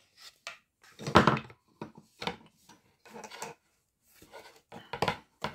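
Wooden parts of an embroidery frame knocking and scraping against each other as they are handled and fitted together, in irregular clatters with the loudest knock about a second in.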